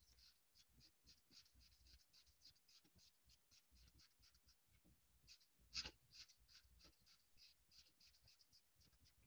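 Felt-tip marker scribbling on paper in quick back-and-forth colouring strokes, several a second, faint, with one louder stroke about six seconds in.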